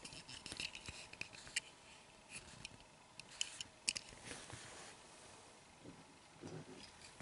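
Faint scattered clicks and light taps of fingers handling a small diecast toy pickup truck and setting it down on a tabletop, mostly in the first four seconds.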